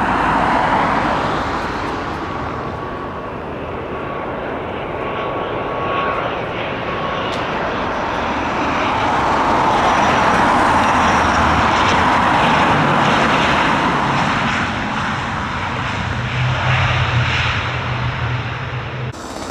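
Jet airliner engines on an arriving heavy jet, a steady roar that swells to its loudest about halfway through and eases off, with a low steady hum joining in over the last few seconds.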